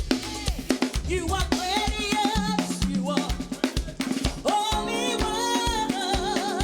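Praise and worship band music: a drum kit keeping a busy beat with bass drum, snare and rimshots under a wavering melody line.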